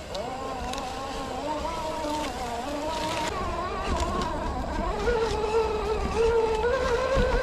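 Electric motor and gearbox of a 4x4 RC crawler whining as it drives, the pitch wavering with the throttle and rising and getting louder about five seconds in.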